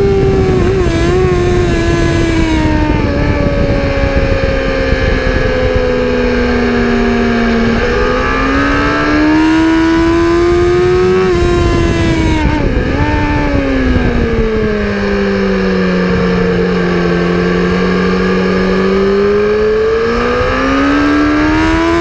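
Engine of a vehicle on a race track, running loud and continuous under load. Its pitch sinks slowly for the first several seconds, climbs, dips sharply about twelve seconds in, sinks to its lowest, then climbs again near the end.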